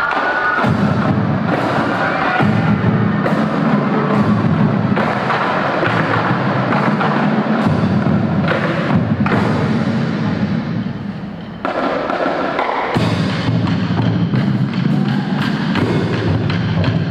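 Marching drumline playing a percussion piece: snare drums and tenor drums rattling over pitched bass drums that change notes. The playing thins out briefly, then the full line comes back in loudly about twelve seconds in.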